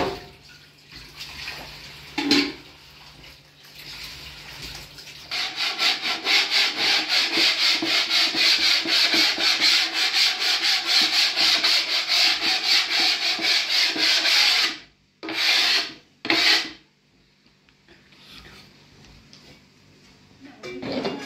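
A pad scrubbing a round wooden bread board in fast, even back-and-forth strokes for about ten seconds, then two short separate rubs.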